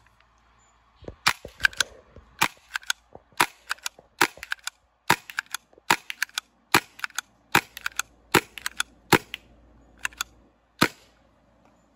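CIP box gun, a stock-class paintball pistol marker, firing a string of about fifteen sharp pops, roughly one to two a second, with fainter clicks between the shots. The shooting stops near the end.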